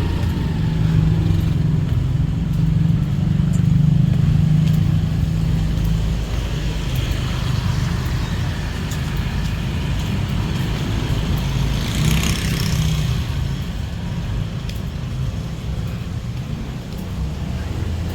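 Street traffic in a jam: motor scooter and car engines running close by, with a louder vehicle passing about twelve seconds in.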